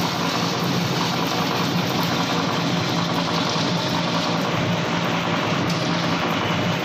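Coconut oil mill machinery running steadily: a loud, even mechanical din with a low hum underneath.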